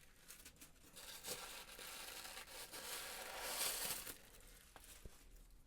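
Paper packaging being handled during an unboxing: rustling and crinkling in bursts for about four seconds, loudest just before it dies down, followed by a couple of light clicks.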